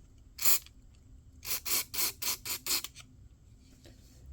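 Aerosol spray can hissing in short squirts into a water blaster's carburetor, a penetrating spray to free a stuck needle valve. One squirt about half a second in, then a quick run of about seven short squirts.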